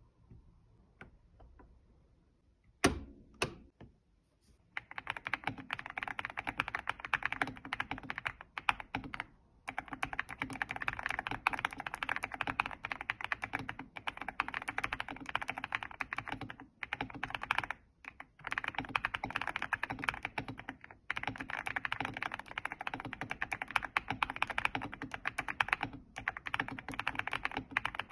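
Velocifire BK75 hot-swappable mechanical keyboard being typed on fast and continuously, with a few brief pauses. Two louder knocks come about three seconds in, before the typing starts.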